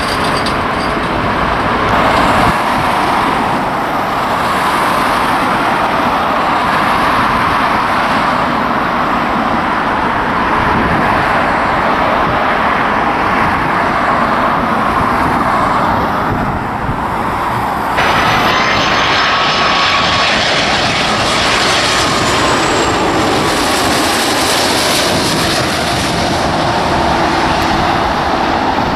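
Jet airliner engines on landing approach: a steady rushing noise throughout, changing abruptly about two seconds in and again about two-thirds of the way through. After the second change, a closer twin-engine wide-body jet is heard with a high whine over the noise.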